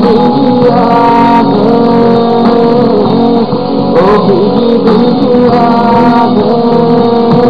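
A man singing, with vibrato, to a strummed acoustic guitar, with sustained keyboard notes underneath, on a dull low-fidelity recording.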